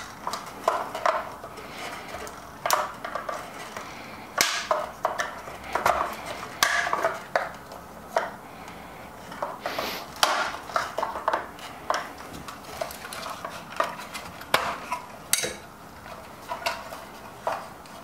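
Flathead screwdriver prying the timer switch of a Baratza Preciso coffee grinder out of the grinder's chassis, working one side and then the other: irregular clicks, taps and scrapes of the metal blade against the switch housing and the chassis.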